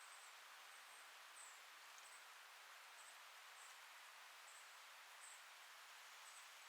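Faint forest ambience: a soft steady hiss of wind in the leaves, with short high-pitched chirps repeating unevenly about once every half second to a second.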